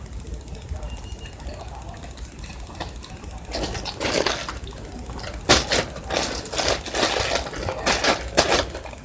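Slime being squeezed and worked by hand, making irregular crackling clicks and squelches that start about three and a half seconds in.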